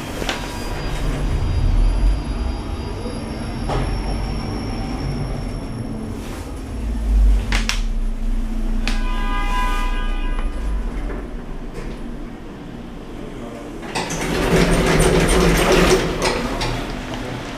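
Older MP (Macpuarsa) lift running: the car's low rumble and rattle while it travels. About halfway there is a buzzing tone for a second or so, and near the end a louder burst of rattling noise.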